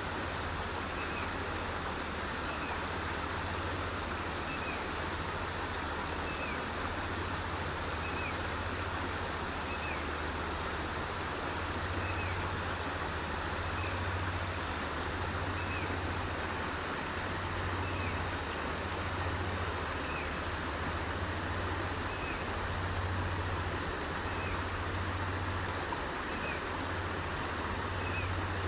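Small forest headwater stream flowing, a steady rush of water. A short high chirp repeats about every second and a half to two seconds.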